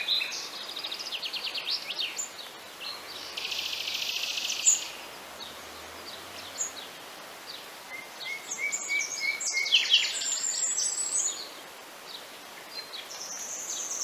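Several small songbirds singing and chirping over a faint steady hiss of open-air ambience. A dense rapid trill comes about three to five seconds in, and a busier run of chirps around eight to eleven seconds.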